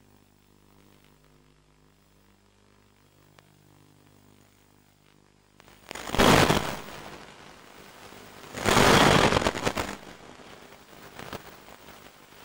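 Faint steady hum from an FPV video downlink's audio channel, broken by two loud bursts of radio static hiss, each about a second long, a few seconds apart: the video link is dropping out.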